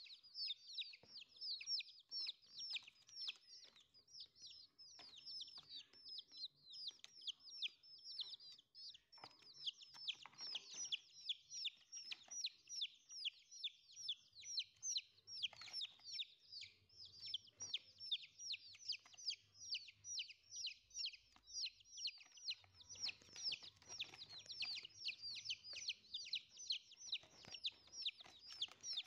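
Young chickens (chicks) peeping without pause, a rapid, unbroken string of high, short cheeps that slide downward, several a second.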